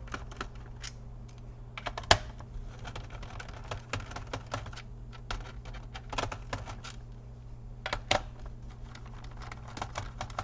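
Small screwdriver backing screws out of a laptop's plastic bottom case: irregular light clicks and ticks, with a sharper clack about two seconds in and a few more around eight seconds, over a low steady hum.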